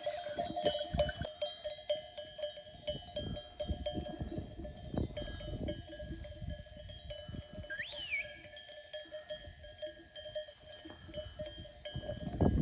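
Bells on a flock of grazing sheep ringing and jangling steadily, with low thumps throughout and one short high chirp, rising and falling, about eight seconds in.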